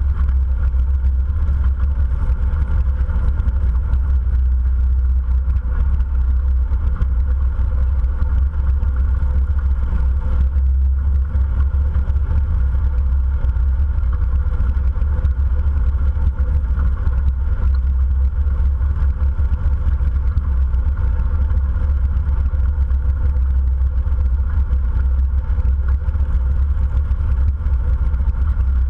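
A motorcycle engine runs steadily at cruising speed, with a heavy, even low rumble and no revving or change in pitch.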